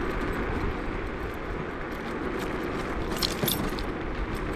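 A steady rushing noise with a brief, light metallic jingle about three seconds in.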